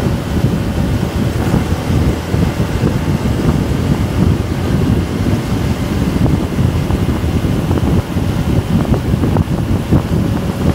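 Wind buffeting the microphone of a phone mounted on a moving motorbike's handlebars, with the bike's road and engine noise underneath.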